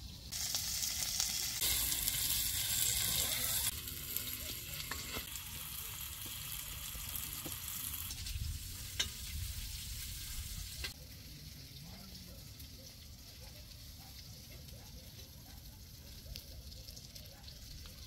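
Sausages sizzling in a round wok-like pan on a portable camping gas stove. The sizzle starts loud, eases after about four seconds, and dies down further about eleven seconds in. A few sharp clicks come near the middle.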